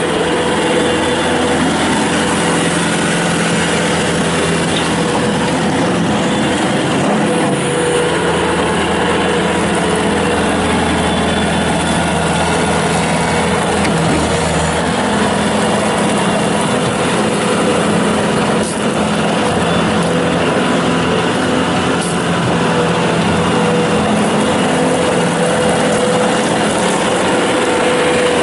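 Bobcat S300 skid steer loader's Kubota 81 hp turbo diesel running steadily, with a steady whine over the engine note.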